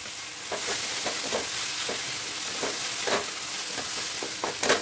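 Taro stolons sizzling in hot mustard oil in a metal kadai, stirred with a wooden spatula that scrapes against the pan in repeated short strokes, the loudest near the end.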